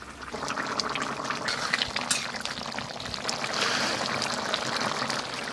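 Fish and cauliflower curry bubbling in an iron kadai over a wood fire: a steady wet bubbling with many small pops, growing louder about a third of a second in.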